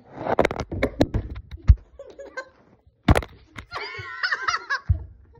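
Knocks and thuds of a phone being handled and knocked over, the loudest a sharp hit about three seconds in. A child's high-pitched laughter follows.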